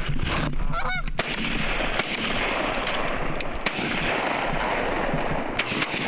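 A large flock of Canada geese honking all at once, a dense din of overlapping calls that starts suddenly and holds steady, with a few sharp knocks mixed in.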